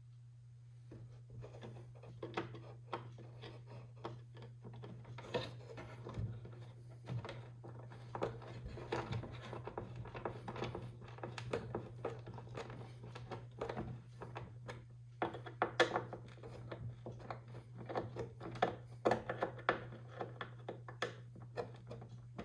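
A hand screwdriver driving a wood screw into the old wooden clock case: a run of small irregular scrapes, creaks and clicks over a steady low hum.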